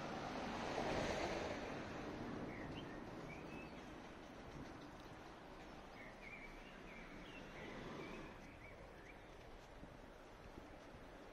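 City street ambience: a broad swell of noise peaks about a second in, then a run of short, high bird chirps through the middle.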